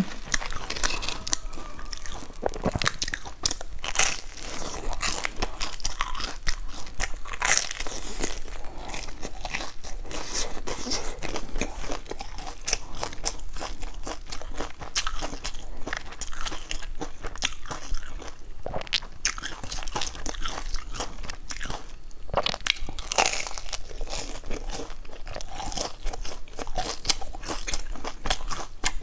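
Biting and chewing of a crusty, crumb-topped bread bun, with dense crunching throughout.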